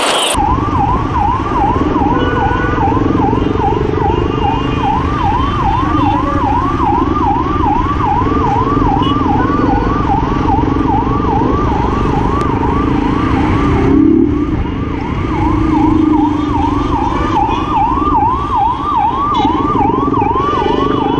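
Ambulance siren on an emergency run, sounding a fast repeating yelp: each tone sweeps up and drops back about twice a second. Under it runs a steady rumble of engine and traffic noise.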